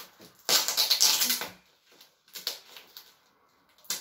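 Tape being peeled off a paper-wrapped cardboard tube: a loud crackling rip about half a second in that lasts about a second, followed by a few light clicks and rustles of the wrapping.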